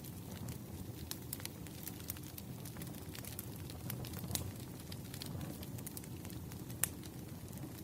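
Campfire burning: a steady low rumble of flames with scattered crackles and sharp pops, the sharpest pop near the end.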